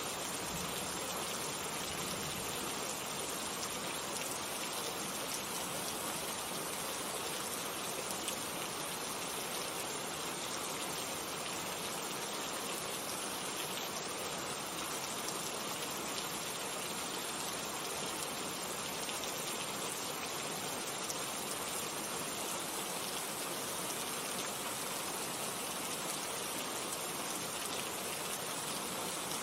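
Steady rain falling, a continuous even hiss of many drops pattering on a surface.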